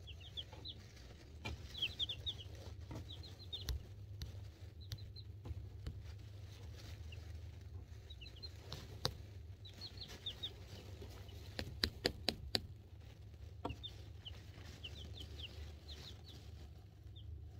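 Two-week-old chicks (Cream Legbar, Buff Orpington, Black Sex Link and silkie chicks) peeping in quick runs of short high chirps. Several sharp taps come near the middle, over a steady low hum.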